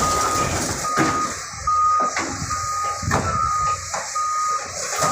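Backup alarm on demolition heavy equipment beeping, a single steady tone repeating a little faster than once a second, over the low rumble of the machine's engine, with a couple of sharp knocks about halfway through.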